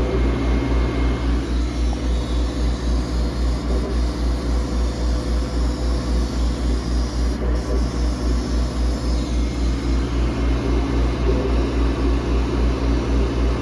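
Boss Laser cutter running a job just after it has been started: a steady low machine hum with a fast, regular throb.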